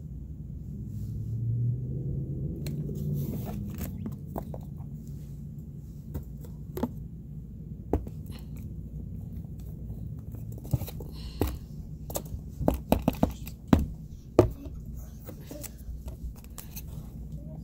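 Paper cut-out puppets being handled against a cardboard box: scattered clicks and rustles, then a quick run of sharp taps and knocks from about 11 to 14.5 seconds in.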